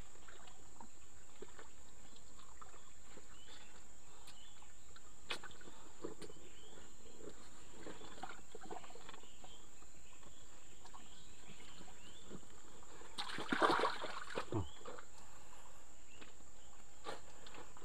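Quiet outdoor ambience with a steady high insect drone and faint scattered rustles. About two-thirds through comes a brief burst of sloshing and splashing in mud and water as a catfish is pulled out of the ditch by hand.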